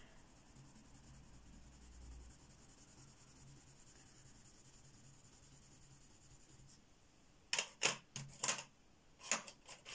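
Giorgione coloured pencil shading a swatch on paper, a faint scratchy rub. Near the end come several sharp clicks and knocks, the loudest sounds here.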